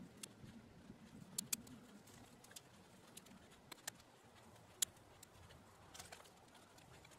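Faint, scattered sharp clicks and snaps of small twigs being handled, broken and laid onto a fire lay of sticks, the sharpest about five seconds in.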